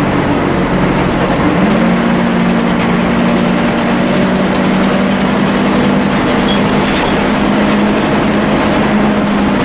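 Volvo B10BLE bus engine running steadily with a whining 'hoover' note. The note steps up in pitch about a second and a half in and then holds steady.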